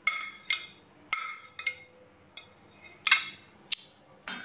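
Glass bowl knocking against the rim of a steel mixing bowl as mashed chhena is tipped and scraped out: about half a dozen sharp, ringing clinks, spread unevenly.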